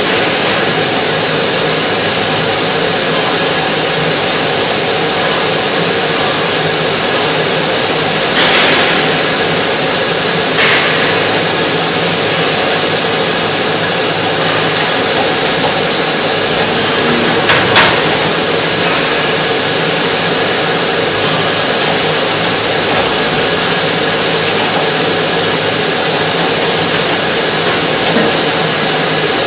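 Yanmar ViO30 mini excavator's diesel engine running steadily, with a few short sharp knocks a third to two thirds of the way through.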